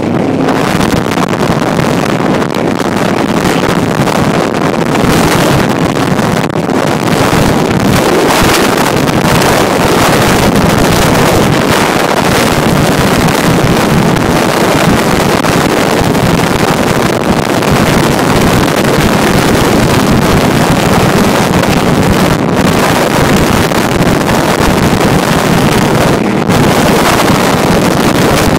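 Cigarette-type offshore powerboat running at speed: a loud, steady rush of wind buffeting the microphone over the engine and hull noise.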